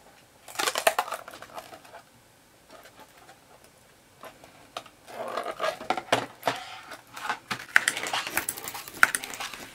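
A freshly 3D-printed part being flexed and peeled off an Ender printer's flexible build sheet: clusters of crackling and snapping clicks as it comes loose, first about half a second in and again, denser, from about five seconds in.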